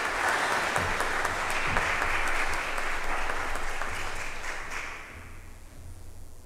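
Congregation applauding, the clapping dying away about five seconds in and leaving a low steady hum.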